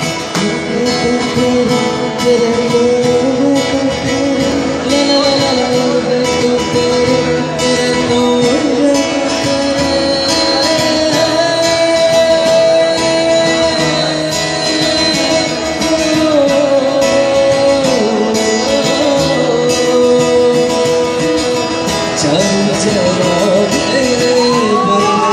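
Live pop song: a man singing long, sustained melodic lines over guitar accompaniment. Whoops from the audience begin near the end.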